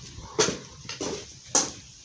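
Three sharp knocks about half a second apart, with fainter taps between them.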